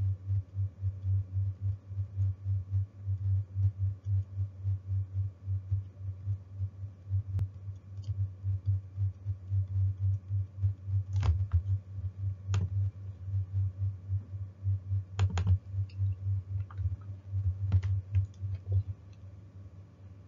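Rapid, muffled tapping at a desk, about four low knocks a second, with a few sharper clicks among them. It stops about a second before the end.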